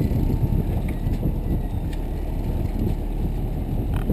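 Steady, muffled low rumble of wind and the boat's motor on a GoPro's microphone, with a faint click near the end.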